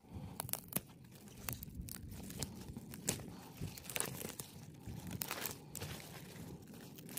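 Rainbow Swiss chard being picked by hand: crisp leaves rustling and crinkling, with irregular sharp snaps as stalks are broken off.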